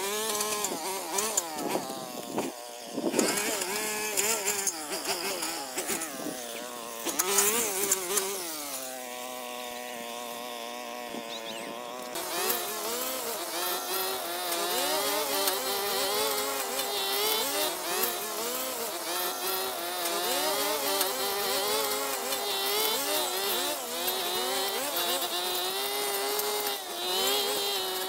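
Small petrol engine revving up and down unevenly. About a third of the way in it settles to a steadier, lower speed for a few seconds, then picks up again.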